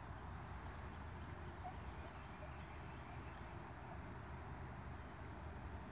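Quiet outdoor background: a steady low rumble with a few faint, short high chirps.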